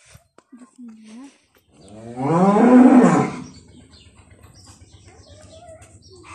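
Holstein dairy cow mooing: one long, loud call about two seconds in, rising then falling in pitch.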